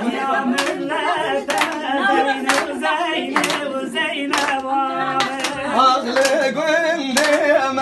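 Voices singing a Kurdish folk song together, with hands clapping in time, about one clap a second.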